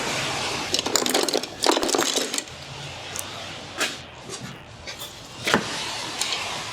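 Hand tools working on the brake caliper bolts: metal clinking and ratchet-like clicking, busiest in the first two and a half seconds, then a few separate metallic clicks.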